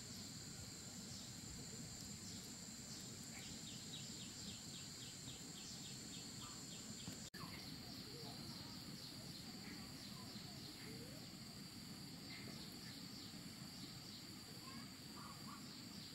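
Faint rural ambience of insects: a steady high-pitched drone, with a run of quick chirps, about four a second, in the first half. A few scattered bird calls are heard, and the sound cuts out for an instant about seven seconds in.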